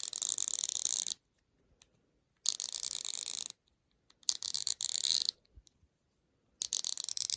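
GEARWRENCH 120XP fine-tooth swivel-head ratchet being turned back and forth, its pawl clicking in four runs of very rapid, fine ticks, each about a second long. The mechanism sounds solid.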